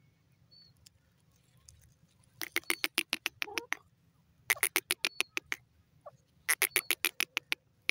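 Female grey francolin calling in three bursts of rapid, clipped notes, about eight a second, each burst lasting about a second.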